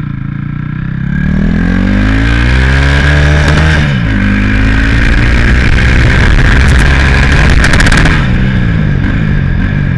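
Turbocharged Honda Titan 160 single-cylinder motorcycle engine accelerating hard while ridden. Its pitch climbs until about four seconds in, drops at a gear change, climbs again, then falls near the end as the throttle closes, with wind noise over it.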